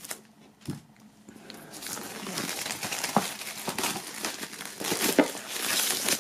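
Plastic shrink-wrap film crinkling as it is peeled and pulled off a cardboard box. There is a short knock early on; the crinkling with small crackles begins about two seconds in and continues.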